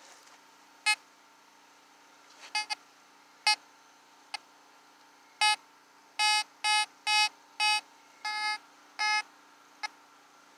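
Fisher metal detector giving short target beeps as its search coil is swept over a freshly dug hole, signalling buried metal still in the ground. A few scattered beeps come first, then a quicker run of about seven in the second half.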